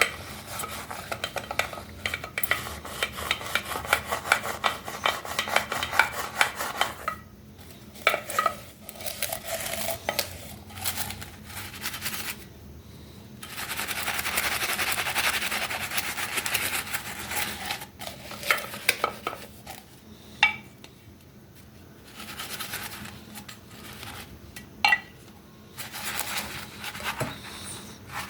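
Hard tool working against a hard object: long runs of rapid scraping ticks with short pauses, a smoother steady rasp in the middle, and a few sharp clinks near the end.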